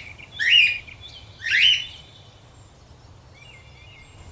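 Wild bird calling: two loud, rising, slurred calls in the first two seconds, then fainter high twittering from other birds.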